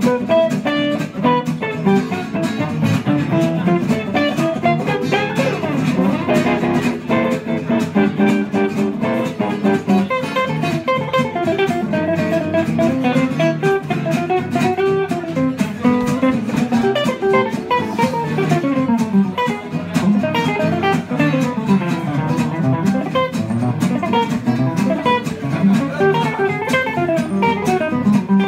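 Two guitars, one an archtop, playing jazz live: a quick single-note solo line runs over steady strummed chords from the other guitar.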